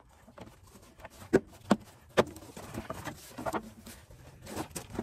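Gloved hands pulling and flexing the plastic wheel-well liner at the front fender: a few sharp clicks and knocks, three of them loudest in the first half, with scraping and rustling in between.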